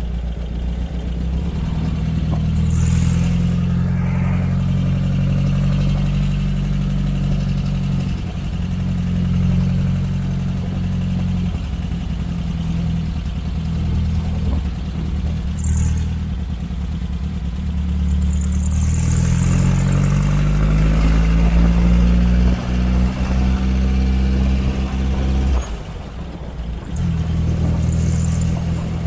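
Air-cooled VW flat-four 1,848 cc stroker engine with Weber carburetors and Cherry Bomb exhaust, running under way as the sand rail drives along a road. The engine note rises in pitch as it speeds up about two-thirds of the way through, then drops off briefly near the end before picking up again.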